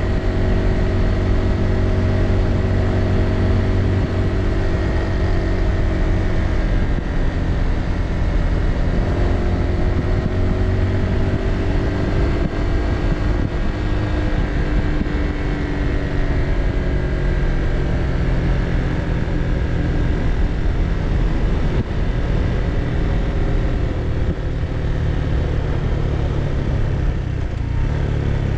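A motorbike's engine running steadily at road speed, its note drifting a little up and down with the throttle, under a heavy low rumble of wind and road noise.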